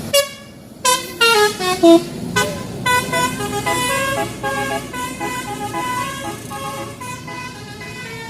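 Bus telolet horn playing a tune: one short blast, then a quick run of notes falling in pitch, then a fast string of changing notes that fades near the end.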